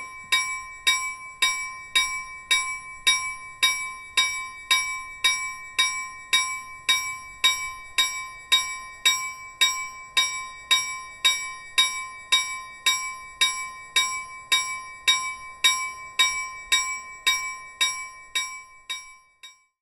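A bell struck at an even pace, about two strikes a second, with its ring carrying on between strikes; the ringing fades out near the end.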